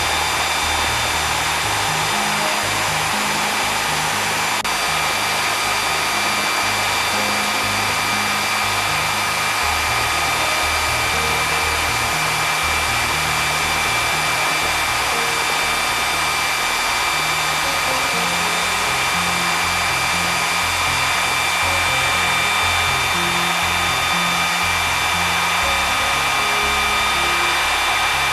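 Pratt & Whitney F119 afterburning turbofan running steadily: an even rushing noise with several high, steady whining tones. Background music with a low, stepping bass line plays underneath.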